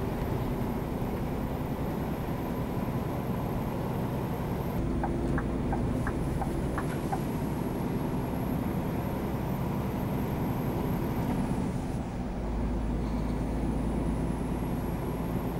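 Steady engine drone and tyre and road noise inside the cab of a Scania R440 tractor unit with its 13-litre engine, cruising at motorway speed while pulling a fully loaded trailer of about 43 tonnes. A few light ticks come about five to seven seconds in.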